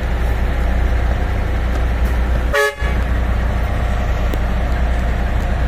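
MAN diesel dump truck engine running steadily with a deep rumble. About halfway through, the rumble drops out for a moment under a short beep-like tone.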